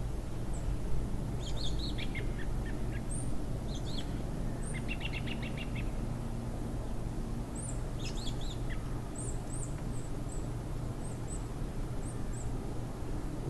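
Small birds chirping and twittering over a steady low rumble, with a quick trill of rapid notes about five seconds in and a run of short, high chirps in the second half.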